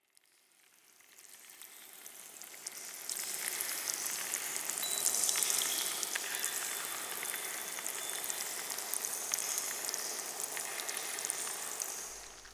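Water showering from a watering can's rose: a steady hissing, crackling patter of many fine droplets. It fades in over the first few seconds and fades away near the end.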